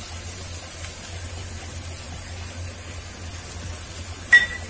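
Oil and spice paste sizzling steadily in a frying pan with yogurt just added. One sharp clink a little over four seconds in.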